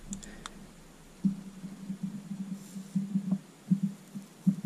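Flux and solder sputtering in soft, irregular pops under the hot tip of a rechargeable soldering iron as it heats an 18-gauge wire in a Deans connector's solder cup. The pops start about a second in, after a few faint clicks.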